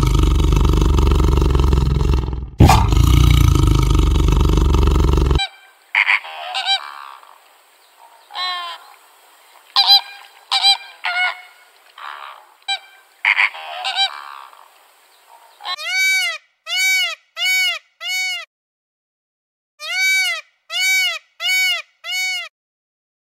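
A tiger roars for about the first five seconds. Then flamingos give scattered honking calls. From about sixteen seconds a peacock calls in two runs of short rising-and-falling cries, about two a second.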